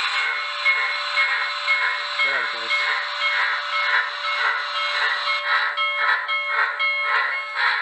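Sound decoder of an HO scale Precision Craft Models Reading T-1 steam locomotive playing steam exhaust chuffs through its small speaker as the model runs, a rhythmic hissing that quickens to about three chuffs a second.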